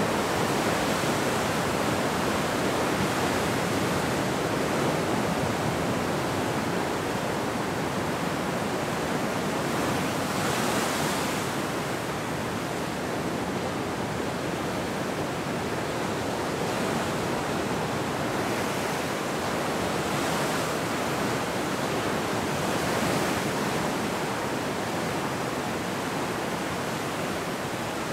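Ocean surf: waves breaking and whitewater washing in, a continuous rush of water that swells a little now and then as a wave breaks.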